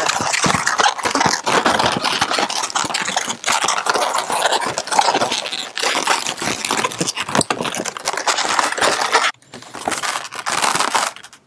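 Inflated latex modelling balloons rubbing and twisting against each other as a balloon tail is wrapped around pinch twists to lock two balloon sections together. The sound is continuous, with a brief lull about nine seconds in.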